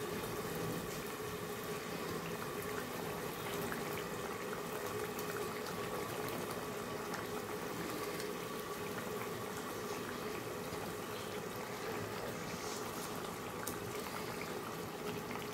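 Tomato-and-potato curry gravy boiling in a kadai, a steady bubbling with a faint steady hum under it.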